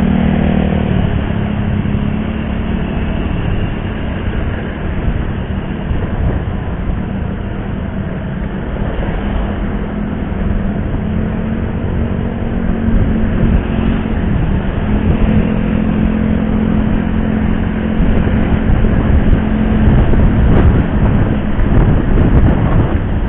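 Motorcycle engine running steadily under way, with road and traffic noise; the hum grows a little louder in the last few seconds.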